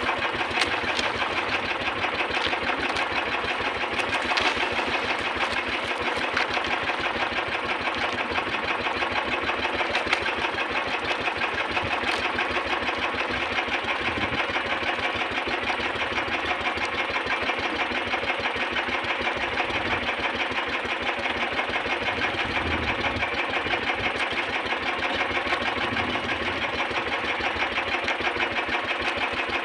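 A small outrigger fishing boat's engine running steadily at constant speed, with a fast, even beat. A few faint clicks come over the first twelve seconds.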